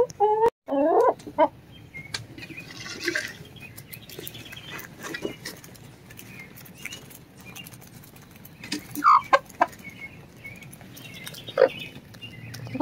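Hens clucking as they feed on a pile of bugs, with scattered quick taps of beaks pecking the dirt. A drawn-out call opens it, and there are louder clucks about nine seconds in and again near the end.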